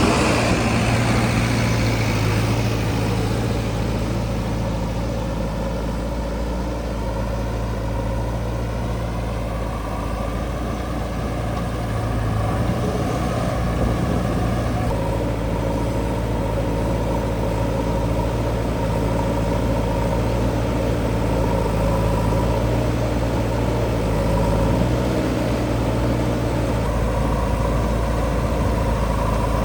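Heavy diesel engine running steadily, its note shifting slightly about halfway through.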